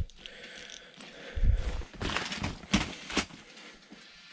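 Handling noises as an angler works his ice-fishing rod at the hole after a bite: a heavy thump about a second and a half in, then three or four sharp knocks and scrapes over the next second and a half.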